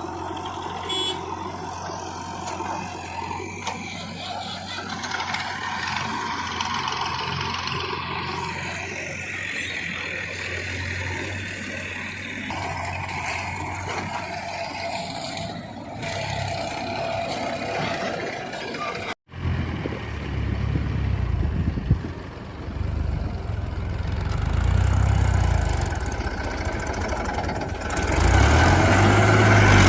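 Diesel engines of a backhoe loader and tractor running under load while loading mud. About two-thirds of the way through there is an abrupt break, after which a louder, lower engine throb takes over and grows stronger near the end.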